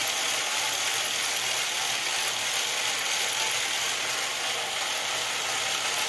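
The plastic gear drive of a Tyco US-1 log loading bulldozer accessory running steadily, a continuous whirring, ratcheting gear noise as its drive piece travels along the slot and returns by the 3D-printed automatic reverse retractor.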